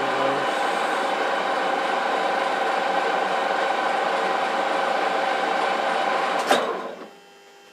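Geared-head metal lathe running under power with the leadscrew feeding the carriage along a long screw being thread-cut: a steady gear whine and motor hum. About six and a half seconds in it is switched off with a click and spins down.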